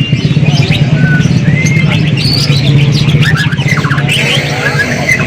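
A vehicle engine running steadily, with many birds chirping and whistling over it in short calls and quick pitch glides.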